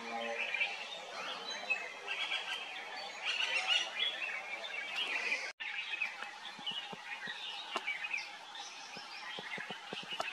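Several small birds chirping and calling in a chorus of short notes. The sound drops out for an instant about halfway through.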